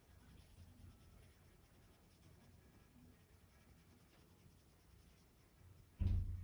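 Faint scratching of a Prismacolor Premier coloured pencil shading on drawing paper. Near the end there is a sudden low thump, much louder than the scratching.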